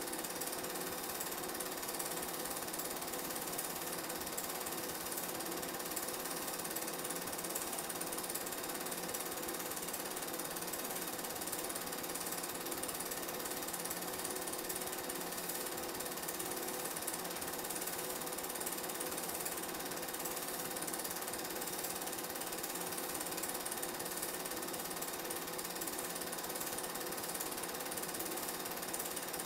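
Film projector running: the steady mechanical whirr and clatter of the film transport, with a low hum underneath, even and unchanging throughout.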